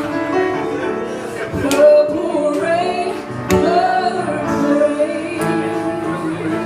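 A female singer with piano accompaniment: over sustained piano chords she holds and bends long sung notes, with the voice wavering in pitch in the middle.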